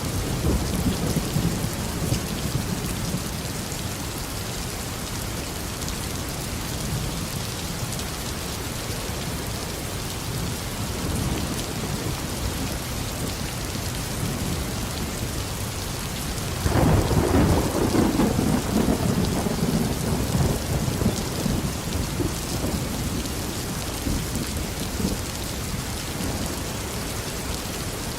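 Steady heavy rain falling, with rolling thunder: a rumble fading in the first few seconds, then a louder clap about halfway through that rumbles away over several seconds.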